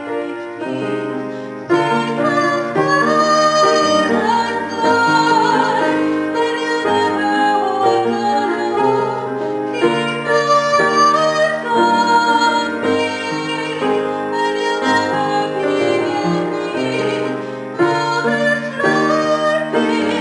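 Instrumental music: a sustained melody line over held chords, getting louder a couple of seconds in.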